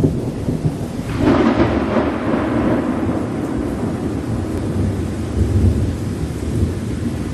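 Recorded thunderstorm: a thunderclap breaks about a second in and rolls away over several seconds, over a steady rumble and rain.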